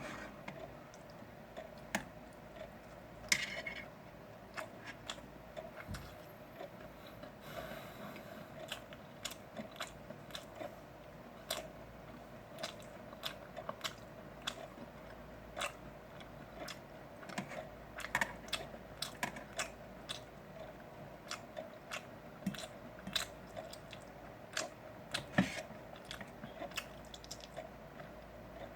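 A person chewing grilled pork belly close to the microphone: many short, irregular clicks and smacks of chewing, over a faint steady hum.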